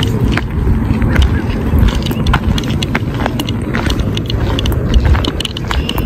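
Low, steady rumble of wind buffeting a phone microphone outdoors, with scattered light clicks and ticks.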